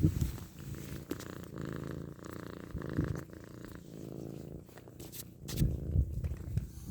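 Domestic cat purring steadily and close, with a few soft bumps mixed in.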